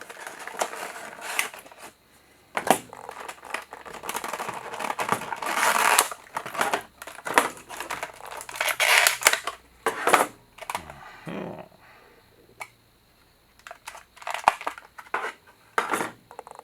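Model-kit packaging being opened by hand: irregular rustling and crinkling with sharp clicks and taps, in bursts with short pauses.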